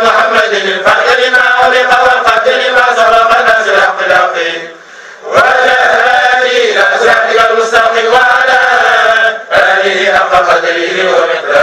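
Men's voices chanting a Sufi devotional chant together in long, drawn-out, wavering notes. The chant breaks off briefly for a breath about five seconds in and dips again near the end.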